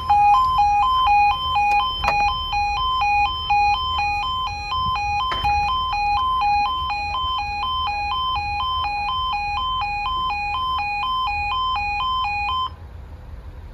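Railway level crossing warning alarm sounding a two-tone yodel, high and low notes alternating quickly, as the barriers lower for an approaching train; it cuts off near the end.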